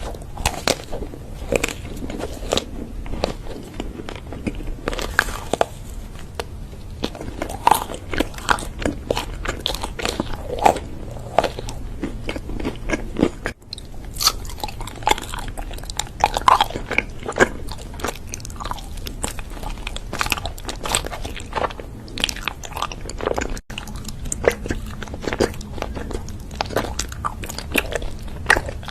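Crunchy food being bitten and chewed close to the microphone: a dense run of sharp, crisp crunches throughout, broken by two brief dropouts about 13 and 23 seconds in.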